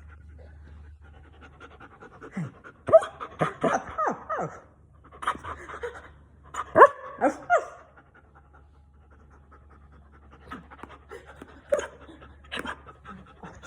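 Puppies panting, with clusters of short, high, falling yips and whines, thickest between about three and eight seconds in.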